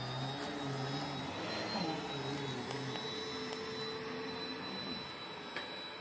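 Bagless upright vacuum cleaner running steadily, an even motor drone with a high whine over it.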